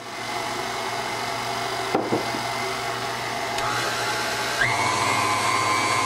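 KitchenAid stand mixer starts up and runs, its wire whisk beating sifted powdered sugar into stiff egg-white meringue until the sugar lumps break up, with a steady motor whine. There are a couple of knocks about two seconds in. About four and a half seconds in, the whine jumps higher in pitch and gets louder.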